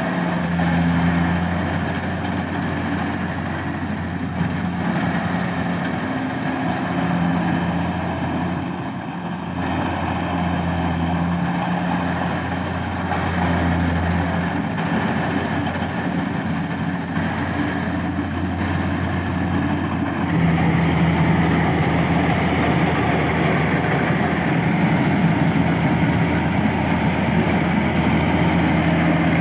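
Kubota DC70 combine harvester's diesel engine running steadily, its hum growing a little louder about two-thirds of the way through.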